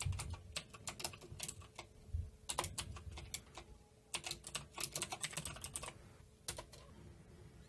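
Typing on a computer keyboard: quick key clicks in short bursts with brief pauses.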